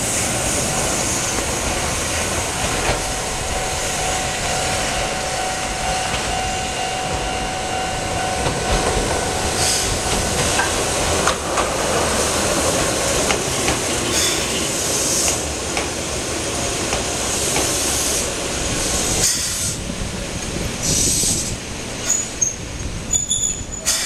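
A train runs past close by, with wheel and rail noise. Then a Keihan 700-series two-car electric train pulls into the station and brakes, with several short hisses and a brief high brake squeal near the end.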